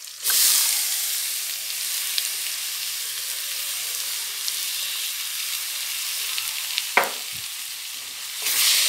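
Grated bottle gourd hitting hot oil in a steel kadhai, setting off a sizzle that starts suddenly just after the beginning and then holds steady. There is one brief knock about seven seconds in. The sizzle swells near the end as a wooden spatula starts stirring the pan.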